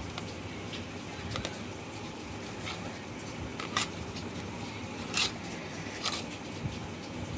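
A few short, sharp clicks and taps of utensils and a dish, scattered over a steady low hum, as the ingredients for a mashed fish bharta are mixed by hand.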